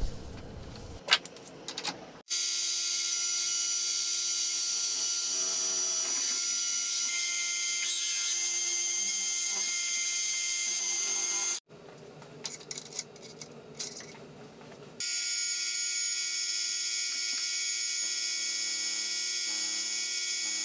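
Benchtop milling machine running with a drill bit in the spindle, drilling a hole in aluminium extrusion: a steady motor and gear whine. It cuts off abruptly about halfway, with a few seconds of light clicks and handling, then starts again.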